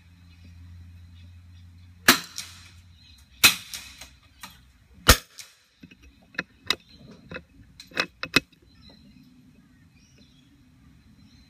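.22LR rimfire rifle shots: three sharp cracks with a short ringing tail, about two, three and a half and five seconds in, the last the loudest. A run of lighter sharp clicks and knocks follows over the next three seconds.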